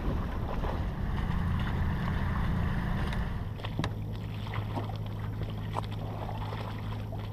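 Sailing yacht under way: steady wind and water noise on deck. About three and a half seconds in, the sound changes to a steady low hum, with a few short knocks on deck.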